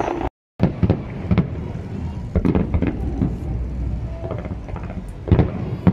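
Fireworks bursting at a distance: irregular dull booms over a steady low rumble, with two louder booms near the end.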